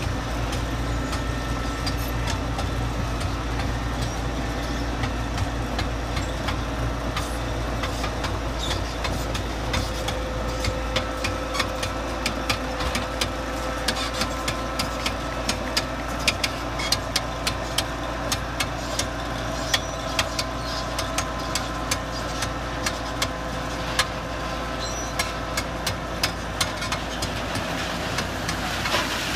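Diesel engine of a crawler-mounted drainage tile plow running steadily under load as it lays corrugated plastic drain pipe, with a stream of sharp clicks and rattles over it that grows busier about halfway through.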